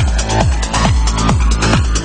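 Electronic trance music with a steady kick drum beat, a little over two beats a second, under sustained synth chords.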